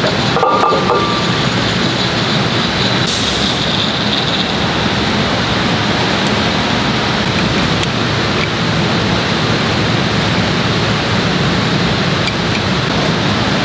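Steady machinery noise from a hydraulic silicone molding press and its shop floor: a continuous even rush. There is a brief metallic clatter about half a second in and a short hiss about three seconds in.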